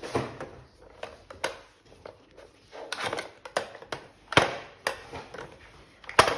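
Irregular knocks and clacks of a dog's treat puzzle game being worked by a golden retriever puppy, the sharpest about four and a half seconds in and again near the end.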